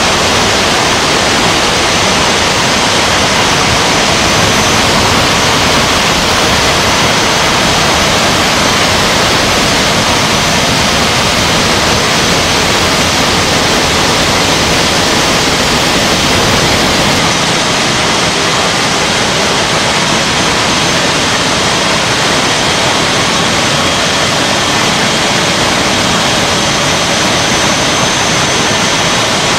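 Blast furnace being tapped: a loud, steady rushing noise from molten iron and slag jetting out of the open taphole.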